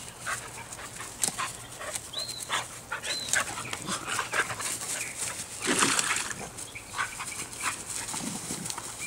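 A Keeshond and a mixed-breed dog play-fighting and chasing: irregular short yips and panting, with a louder rough burst about six seconds in.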